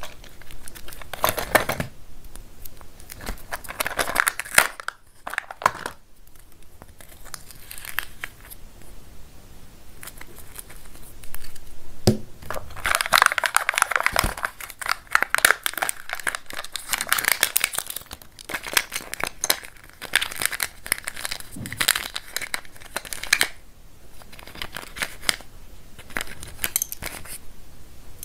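Kinder Joy egg packaging being handled: the printed seal is peeled off the plastic toy half with crinkling and tearing, among light clicks and taps of the plastic egg halves. The crinkling is busiest in a long stretch around the middle.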